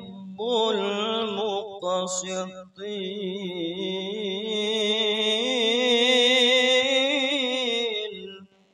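Male qari reciting the Qur'an in melodic qiroat style through a PA system. He holds long ornamented notes with a fast vibrato, and one long drawn-out note fades away shortly before the end.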